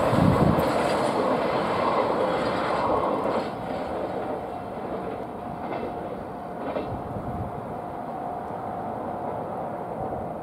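Container freight train's wagons running past on the rails, loud for the first three and a half seconds, then fading to a steady lower rumble as the last wagons pull away. A steady thin tone sounds through the quieter part, with a couple of short clicks.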